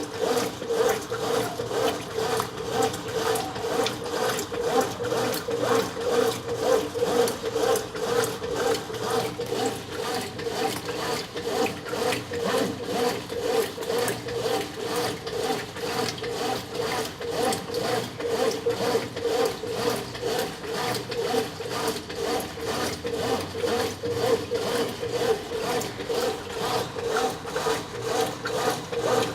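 Brastemp 9 kg top-loading washing machine agitating a load during its wash cycle: a steady motor hum with a repeating rubbing, churning pulse.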